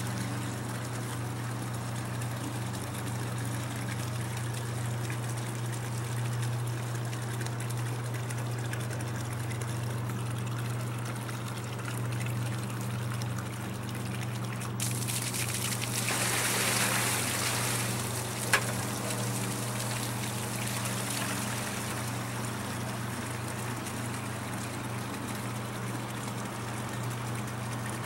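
Water from a pump's discharge hose pouring and splashing into a plastic bucket over a steady low hum; the splashing grows louder for a few seconds past the middle, followed by a single sharp click.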